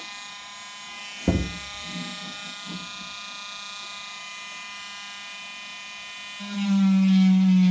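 Handheld rotary tool running with a steady high-pitched whine as it carves the deadwood of a juniper bonsai trunk. A single knock comes about a second in. Near the end the bit bites into the wood: the pitch drops slightly under the load and a louder buzz sets in.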